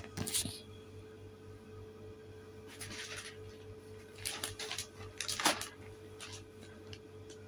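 A plastic carrier bag rustling and crinkling in short bursts as it is handled and folded, with a steady low hum underneath.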